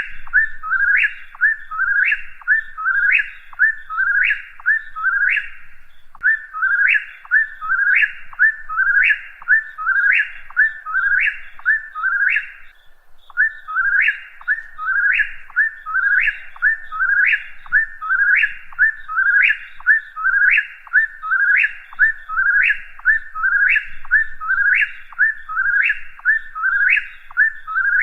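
Whip-poor-will singing its whistled 'whip-poor-will' phrase over and over, about once a second, each phrase ending in a sharp upward slide, with one short break about halfway through.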